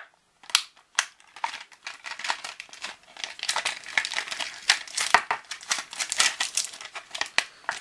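Clear plastic packaging bag crinkling as it is handled, with small plastic toy kitchen pieces inside: a few sharp crackles at first, then dense continuous crinkling.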